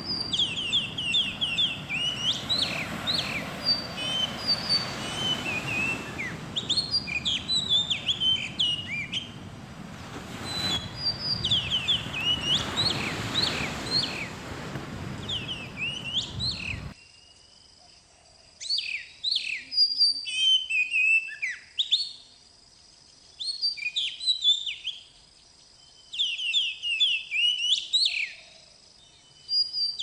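Birds chirping and whistling in quick, repeated phrases over a steady rush of surf and wind. The surf noise cuts off suddenly a little past halfway, leaving the bird song alone with short quiet gaps between phrases.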